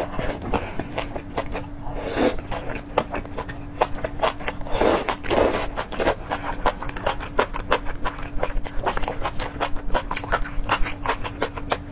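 Close-miked eating of enoki mushrooms in spicy sauce: slurps at the start, around two seconds in and around five seconds in, amid a steady run of wet chewing clicks and lip smacks.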